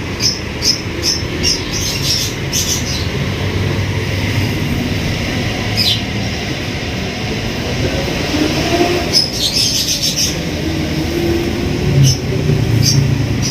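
Steady low mechanical rumble with short, sharp clicks now and then, clustered near the start and again in the middle, and a faint wavering squeal.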